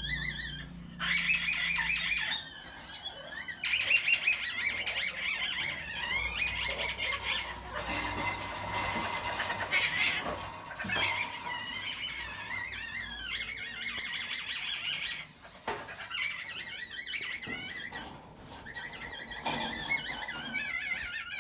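Asian palm civets in a wire breeding cage giving high, wavering squeals and chirps, over and over in short bursts with brief pauses.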